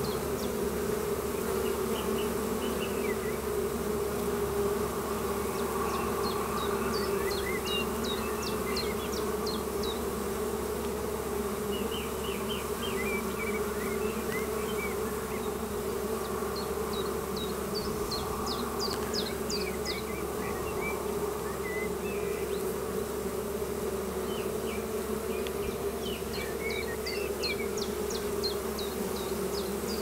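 Honeybees humming steadily at a hive entrance, many bees fanning and flying in close: the sound of an active colony. Clusters of short high chirps come and go every few seconds above the hum.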